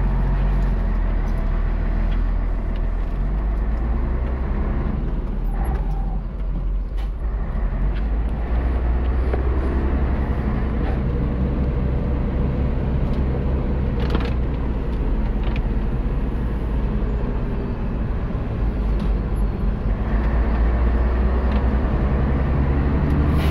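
Expedition truck's engine running as it drives along a road, with steady engine and road noise. The engine note climbs in the last few seconds as the truck speeds up.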